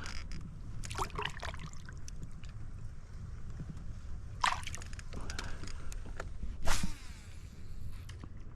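Water splashing and sloshing in short bursts, three times, the last the loudest, over a steady low rumble.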